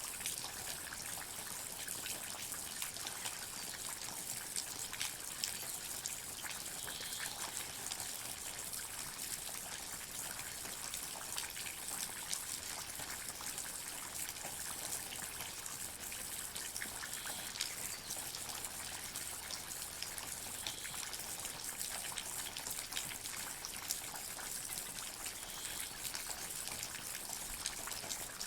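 Water dripping in a forest: many small drops ticking irregularly over a steady, even hiss of falling water.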